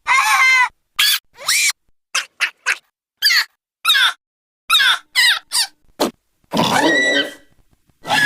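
A string of short creature-like sound effects: about a dozen brief high-pitched squeaks and squeals, many sliding in pitch, each cut off by silence. Near the end comes a longer, rougher squeal.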